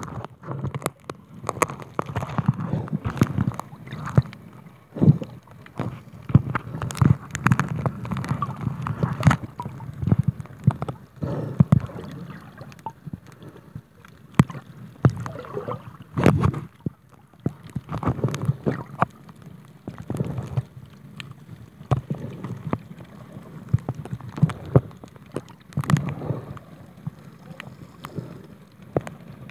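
Muffled water sounds from a camera held just under the sea surface: sloshing and gurgling, broken by many irregular sharp clicks and knocks.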